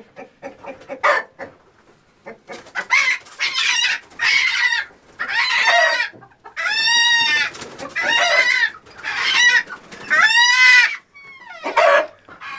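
Chickens squawking in alarm while being caught off the roost: a run of about seven loud, drawn-out squawks, each about a second long, starting about two seconds in. Scattered rustles and clicks come before them.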